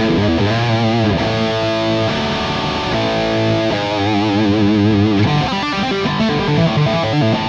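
Harley Benton SC-550 single-cut electric guitar played through an amp: a lead phrase of sustained notes, with wide vibrato on the held notes about a second in and again around four seconds in.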